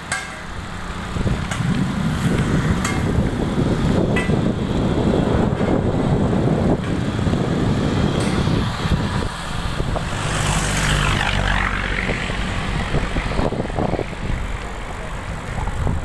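Wind rumbling on a phone microphone carried on a moving bicycle, along with road noise. A motor vehicle passes about ten seconds in, swelling and then fading.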